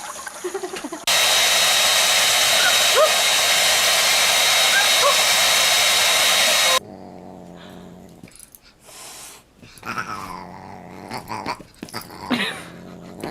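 A loud, steady blowing noise like a hair dryer starts about a second in and cuts off suddenly about seven seconds in. Short animal calls follow near the end.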